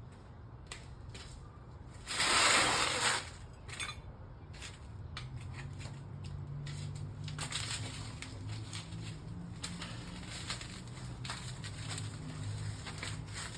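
Metal hand tools and suspension parts clicking and clinking during work on a truck's sway bar link, with a louder rasping noise lasting about a second, two seconds in.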